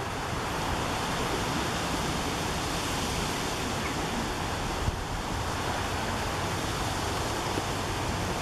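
Steady wind blowing, an even rushing hiss that holds at one level throughout.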